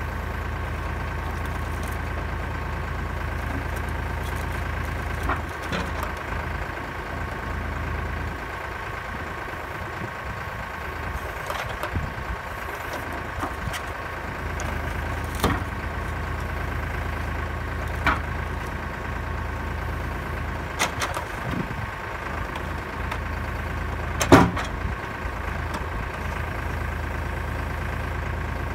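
Kioti tractor engine running steadily to power the trailer-mounted log loader, with a series of sharp wooden knocks and clunks as the grapple sets logs on the trailer bunk. The loudest knock comes about 24 seconds in.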